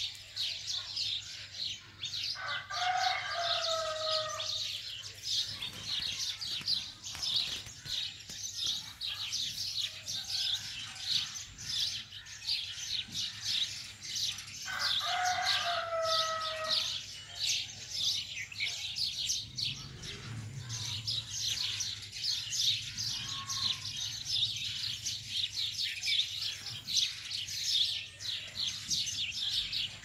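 Many small birds chirping, a constant dense chatter of short high notes. Twice, about twelve seconds apart, a louder and lower call of about two seconds cuts through it, its pitch falling at the end.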